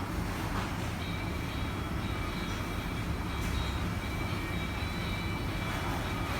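A vehicle running steadily: a constant low rumble, with faint thin high whining tones from about a second in.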